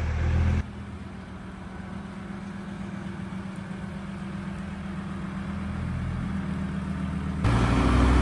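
Volkswagen T4 campervan engine idling steadily, with abrupt cuts about half a second in and near the end where the level jumps.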